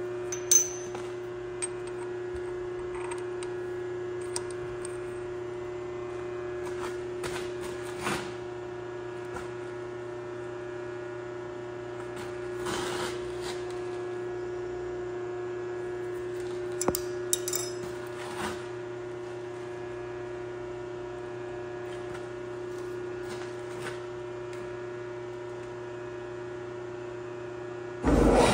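Steady hum with a few scattered metal clicks and taps as the cutting insert in a line-boring bar is set with an Allen key; right at the end the line-boring machine starts up loudly for the final inside cut.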